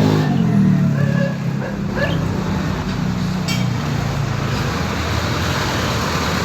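A vehicle engine running amid road traffic noise, with a low hum that fades after about three and a half seconds, a sharp click at that point, and then a steady rumble.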